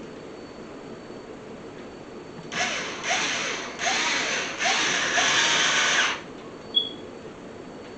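Power drill driving screws in four short bursts, starting about two and a half seconds in; the last burst is the longest and stops about six seconds in.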